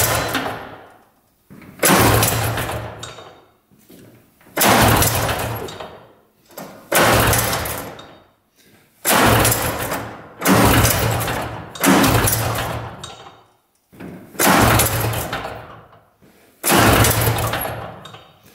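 Two-stroke engine of a 1970s mini tank being pulled over by its pull-starter with the throttle open, about eight hard pulls roughly every two seconds; each starts sharply and fades as the engine turns over without firing. A compression gauge is fitted to the cylinder, which reads about 230 pounds of compression and is very hard to pull.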